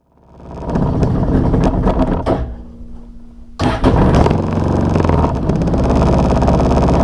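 A small vehicle engine running. It fades in, drops to a quieter hum for about a second past the midpoint, then comes back suddenly loud and runs steadily.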